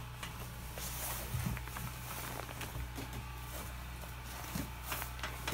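Footsteps on wet wooden stairs, with scattered knocks and shuffles, over a steady low hum.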